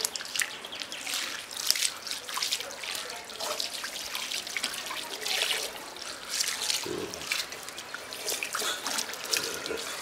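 Water splashing, trickling and dripping in irregular bursts.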